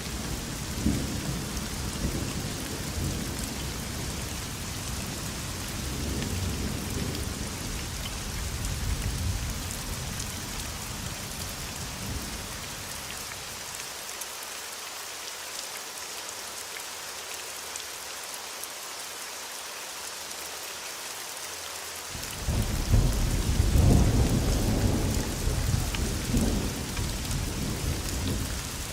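Thunderstorm: steady rain hissing with rolling thunder. The thunder dies away about halfway through, leaving only the rain for several seconds. Then a louder roll of thunder breaks in about three quarters of the way through and rumbles on to the end.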